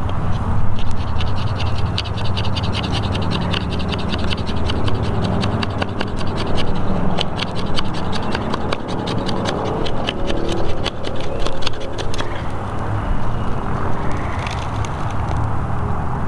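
A BPS high-carbon-steel bushcraft knife shaving long curls off a hardwood stick: a quick run of short scraping strokes, stopping about three quarters of the way through.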